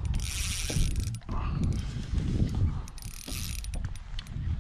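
Spinning reel (Okuma JAW 30) clicking and whirring under load as a hooked trevally pulls against it.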